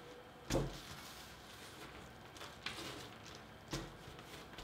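A cheese ball being rolled and pressed by hand into chopped pecans and sliced almonds: faint rustling and crunching of the nut pieces, with a soft thump about half a second in and another a little under a second before the end.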